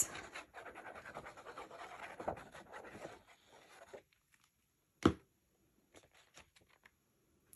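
Tip of a squeeze bottle of Beacon 3-in-1 craft glue dragged over the back of a sheet of paper as glue is squeezed out: a fine scratchy sputter for about three seconds. About five seconds in comes a single sharp tap as the bottle is set down, then faint paper rustling as the sheet is handled.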